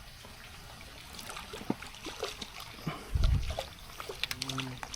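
Hooked fish splashing at the water's surface as it is drawn in on a float-fishing line: a run of small, irregular splashes, with a dull thump about three seconds in.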